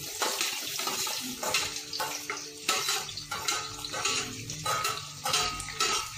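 Chopped vegetables tipped into hot oil in a metal kadhai, sizzling, with repeated clinks and scrapes of metal as they are pushed off a steel plate into the pan.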